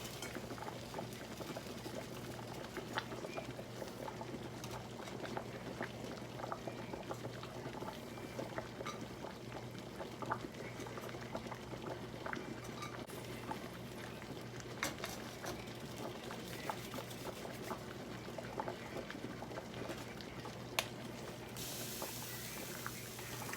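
Pot of chicken soup at a full boil, bubbling and popping steadily, with a few sharper clicks. A steady low hum runs underneath, and a hiss comes in near the end.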